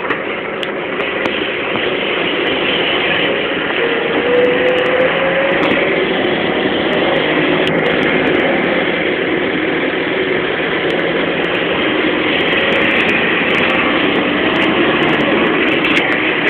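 Cabin noise of a BMC 220 SLF low-floor city bus on the move: a steady rumble of engine and road noise over a rough road surface, with a faint rising whine about four seconds in and light rattling clicks later on.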